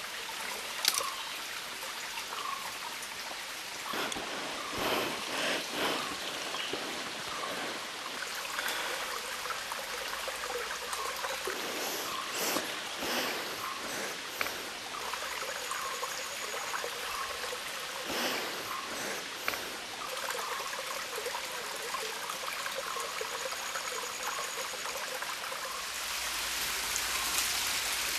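Shallow forest stream trickling over rocks, a steady rush of water with a few brief knocks. The water gets louder for the last couple of seconds.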